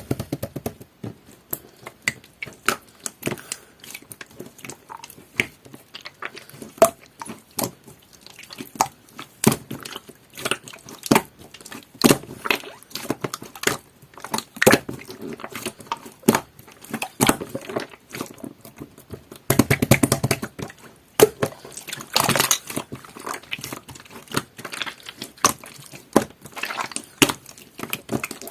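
Clear jelly-textured slime being squished and poked by hand, making irregular sticky clicks and pops, with denser squelching in two stretches about two-thirds of the way in.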